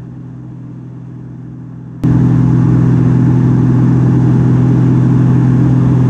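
Gamebird GB1 aerobatic plane's six-cylinder Lycoming piston engine and propeller droning steadily, heard inside the cockpit; the drone jumps suddenly louder about two seconds in and stays there.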